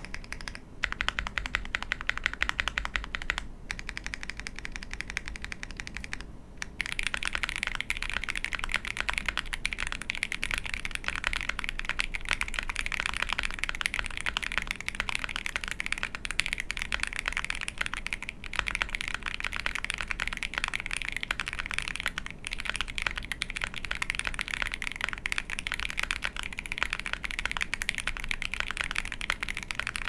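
Typing on a mechanical keyboard with Krytox-lubed Neapolitan tactile switches on a POM plate, under GMK keycaps: a dense run of key clacks. The typing pauses briefly about six seconds in, then runs faster and louder.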